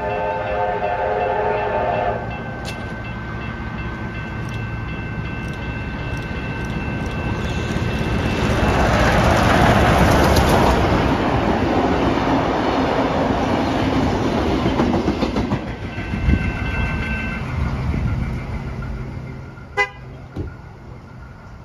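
Steam locomotive A2 986's whistle blows for about two seconds at the start while the level crossing bells ring steadily. The steam train then runs past, loudest about ten seconds in, and fades away as the bells stop. A sharp click near the end comes as the boom gates start to rise.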